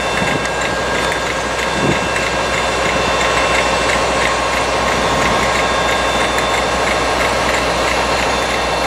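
GWR Class 800 IET train moving slowly past at close range: a steady mechanical running noise with several steady tones and a fast, light repeated ticking.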